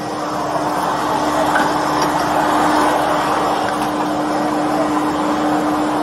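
Backhoe's diesel engine running steadily, heard from inside the cab, with a constant low hum under an even mechanical noise.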